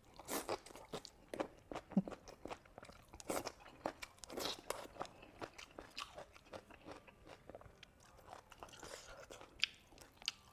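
A person chewing and eating food close to the microphone: irregular wet mouth clicks and smacks with some crunching.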